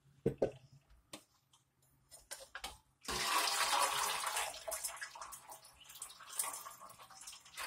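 A few light knocks, then about three seconds in water suddenly starts rushing and splashing out through the holes of a perforated aluminium colander insert as it is lifted from a pot, draining soaked shredded cabbage and carrot. The pouring eases a little toward the end.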